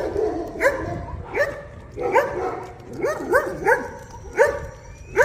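A dog barking over and over, a short bark roughly every half second to second.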